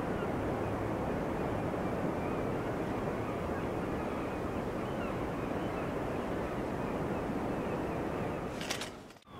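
Steady rush of sea waves and wind buffeting the microphone, an even low wash. Near the end come a few clicks, then the sound briefly drops out.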